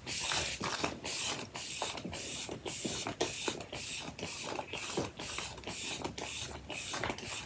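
Benefit Porefessional Super Setter setting spray pump-mist bottle sprayed over and over at the face, a quick run of short hissing spritzes at about two a second.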